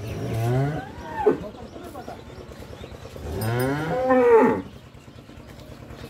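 Holstein-Friesian cross-breed dairy cow mooing twice, each moo about a second and a half long, rising then falling in pitch. The second moo, starting about three seconds in, is louder.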